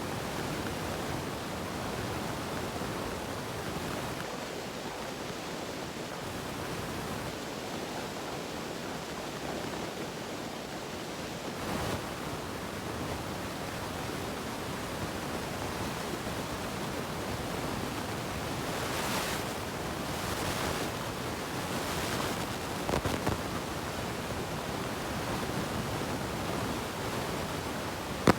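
Steady hiss of background noise, with a few brief faint handling sounds scattered through it.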